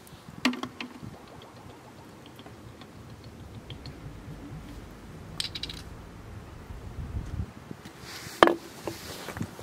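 Engine oil poured from a metal can of Honda Ultra G1 into a motorcycle engine: a low gurgling rush builds for a few seconds and stops abruptly. Sharp clicks of the can being handled come about half a second in, and a loud metallic knock with a short ring comes near the end.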